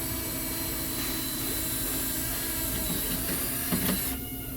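Battery-powered drill running steadily at constant speed, turning a through bolt through the O-rings of a rock drill's shuttle assembly, then stopping about four seconds in.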